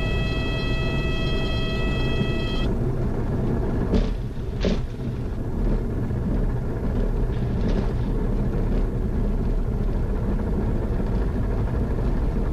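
Cockpit noise of a Grumman American AA-5 light single-engine plane during a landing: a steady engine and propeller rumble, with the stall warning horn sounding a steady tone that cuts off about two and a half seconds in. Two sharp knocks follow close together about four seconds in as the plane slows on the runway.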